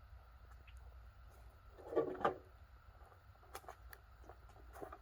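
Quiet handling of dehumidifier parts during disassembly: a short scrape about two seconds in, then a few light clicks and taps, over a low steady hum.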